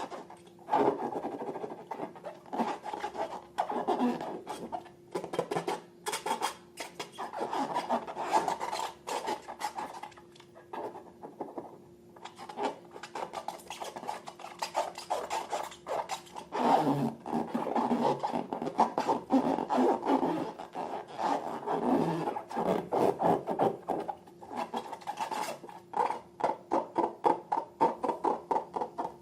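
Homemade slime being mixed and kneaded, with a dense run of sticky crackles, pops and rubbing sounds that pause briefly a few times.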